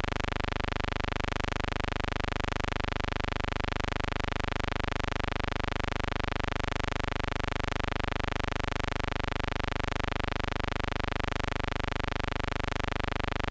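A steady, unchanging electrical buzz, one constant pitch with a fast even pulse; no train sound can be heard in it.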